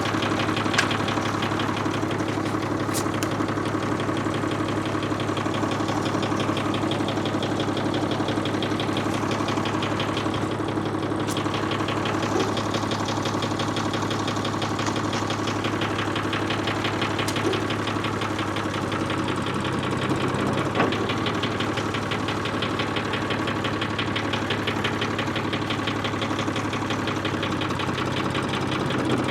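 Ford 4000 tractor engine idling steadily while it warms up after a coolant refill.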